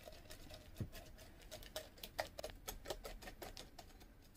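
Small wire whisk beating pancake batter in a glass measuring cup: a fast, uneven run of faint clicks as the wires strike the glass.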